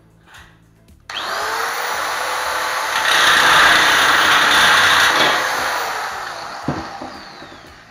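Handheld power tool cutting a steel drywall profile: the motor starts suddenly and spins up with a rising whine, cuts loudly through the metal for a couple of seconds, then winds down with a falling whine. A single knock comes near the end.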